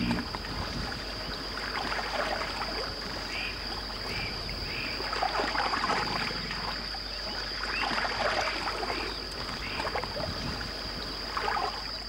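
Spectacled caimans splashing and sloshing in shallow muddy water as they seize fish, in several separate bouts of splashing. A steady high-pitched whine runs underneath.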